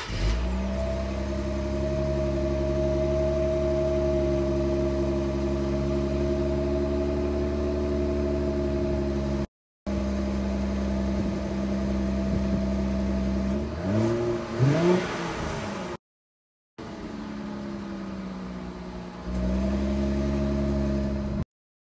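Infiniti Q50S 3.0t's twin-turbo V6 idling on its stock muffled exhaust, recorded at the tailpipe, with one quick blip of the throttle about two-thirds of the way through. The stock exhaust is quiet, which is why it is getting a muffler delete.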